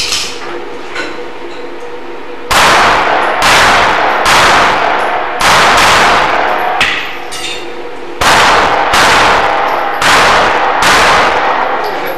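Pistol shots fired in two strings, about four shots each roughly a second apart, with a pause of about two seconds between them. Each shot is followed by a long ringing echo.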